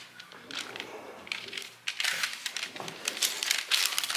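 Baking paper rustling and crinkling as hands move and lift the sheets, with many small crackles; faint at first, louder from about halfway in.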